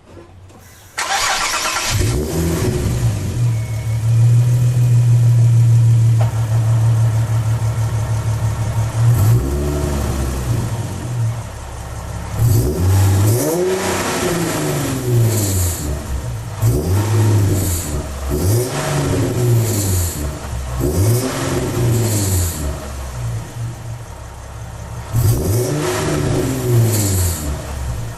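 Nissan 370Z's 3.7-litre V6 exhaust. The engine starts about a second in and settles to a steady fast idle. From about nine seconds it is revved about six times, each rev rising and falling back, to show an exhaust fitment and noise problem.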